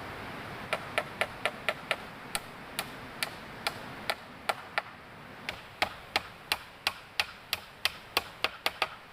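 A quick series of sharp knocks or taps, in uneven runs of two to five a second, growing louder and faster in the second half.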